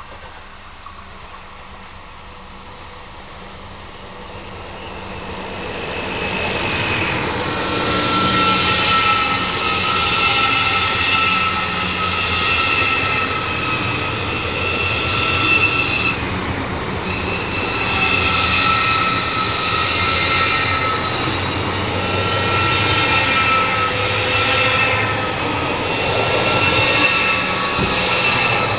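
A train approaching and passing at speed on a mainline. It comes in a few seconds in and stays loud, with rolling noise and high squealing tones from the wheels that swell and fade about every two seconds. It is still passing at the end.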